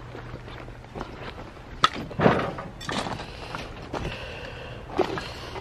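Footsteps crunching on gravel and scattered scrap, irregular, with a sharp click a little under two seconds in.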